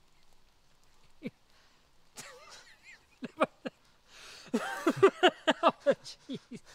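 A man laughing: a few short chuckles, then, about four seconds in, hearty laughter in quick repeated bursts, about five a second.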